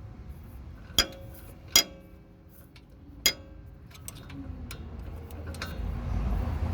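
Metal tools clinking on the lower shock mount bolt while it is fitted and tightened: three sharp metallic clinks with short ringing about a second in, near two seconds and just past three seconds, then a few fainter ticks.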